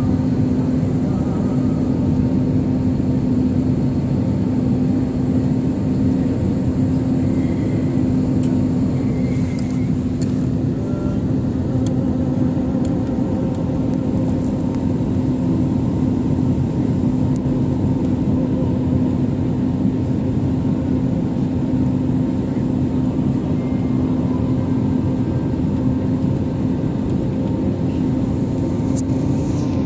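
Airliner cabin noise on the landing approach: the steady rush of jet engines and airflow over the fuselage, with a constant low hum underneath.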